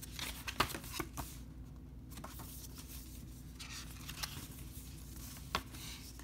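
A paper booklet being handled and opened, its pages rustling softly, with a few light taps and clicks in the first second and another about five and a half seconds in.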